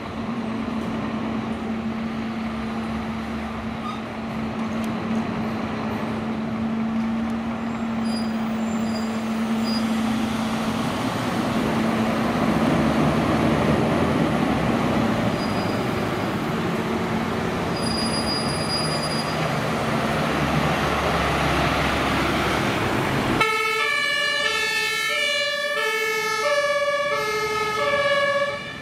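Scania fire engines' diesel engines running and pulling out, the engine noise swelling about twelve seconds in. About twenty-three seconds in the sound switches to a German two-tone fire-engine siren, alternating steadily between two pitches.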